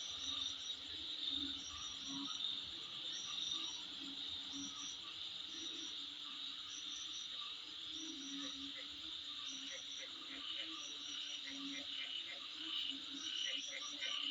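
Chorus of crickets and other insects: a steady high trill, with short chirp groups repeating about once a second above it and low frog croaks beneath. From about two-thirds of the way through, rapid clicking calls join in.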